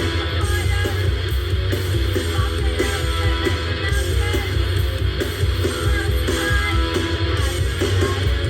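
Rock song playing, with guitar over a steady bass.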